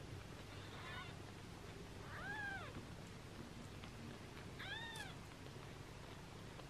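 Newborn British shorthair kittens mewing: three short, thin cries, each rising and then falling in pitch. The first, about a second in, is faint; the other two come at about two seconds in and near the middle.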